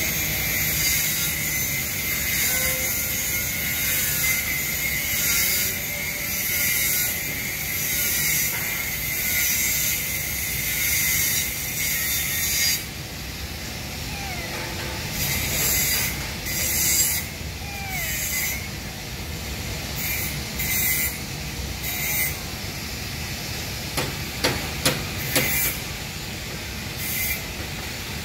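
A cat eating wet cat food chunks from a foam tray up close: wet chewing and smacking, with a few sharp clicks near the end. Under it is a steady hiss that drops off about halfway through.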